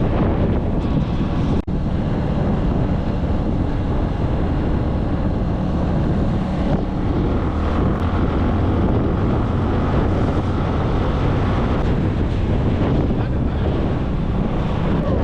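Wind buffeting the microphone of a motorbike rider at road speed, a loud steady rumble, with a brief dropout about one and a half seconds in.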